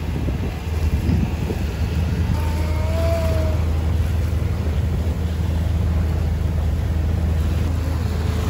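A sailboat's engine running steadily as the boat motors through open water, with wind and water noise over the low hum.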